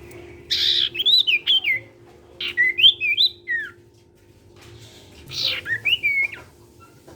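A pet sirtu songbird singing in three bursts of quick, rising and falling whistled notes, each about a second long and about two seconds apart.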